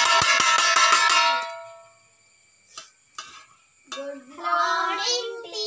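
A school bell struck rapidly with metal, about six clangs a second, stopping about a second in and ringing out. A voice starts near the end.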